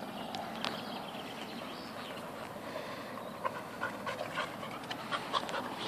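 Yellow Labrador dogs panting as they play, with a scatter of short clicks in the second half.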